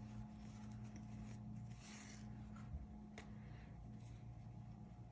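Faint rustling and rubbing of yarn drawn over a metal crochet hook as stitches are worked, with a couple of light clicks, over a low steady hum.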